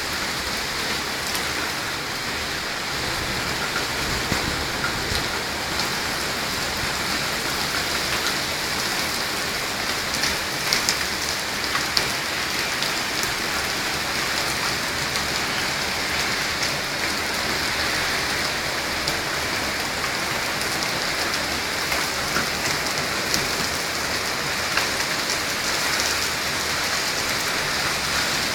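Heavy thunderstorm rain falling steadily, with frequent sharp ticks of drops striking close by.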